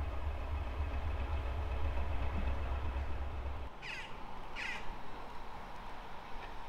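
A low rumble cuts off abruptly about halfway through, then a bird calls twice in quick succession, less than a second apart.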